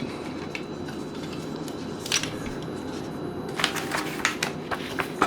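Light plastic clicks and taps from a plastic Gundam model kit being handled: one about two seconds in and a quick cluster of several around four seconds in, over a steady low background hum.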